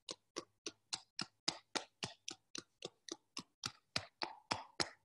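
Pair of small rubber Tune Up therapy balls popped lightly against both sides of the calf, an even run of quick taps about four a second.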